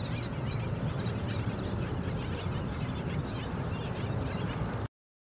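Black skimmer colony calling: many short, overlapping calls over a steady low rumble, cutting off suddenly near the end.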